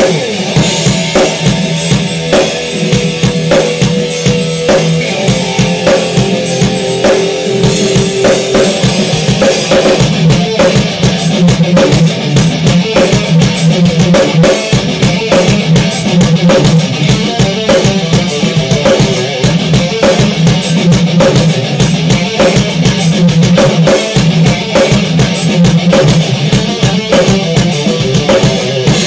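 Electric guitar riffs played through a Line 6 Spider Jam amp, over the amp's built-in drum-machine track with a steady rock beat.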